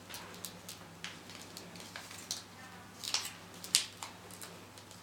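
Origami paper crinkling and rustling in the hands as it is opened out and folded, in irregular crisp crackles, the loudest a little before four seconds in.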